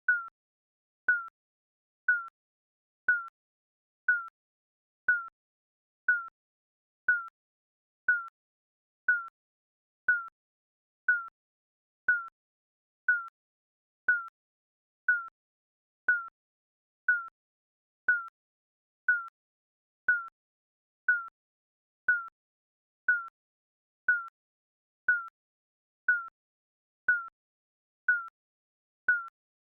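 Digital countdown timer beeping: a short, high beep once every second, evenly ticking off the seconds.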